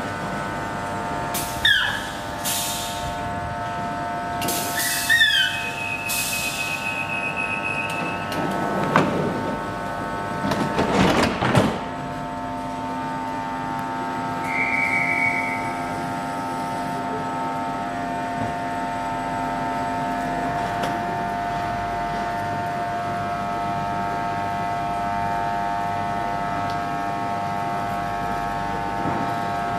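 East Coast InterCity 225 electric train pulling slowly out of the platform: a steady electric whine of several tones. Near the start come two brief squeals sliding down in pitch, and a few loud clanks and rattles follow about ten seconds in.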